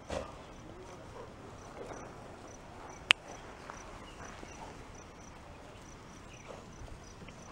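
Faint insect chirping, a short high chirp repeating evenly a little more than twice a second, with one sharp click about three seconds in.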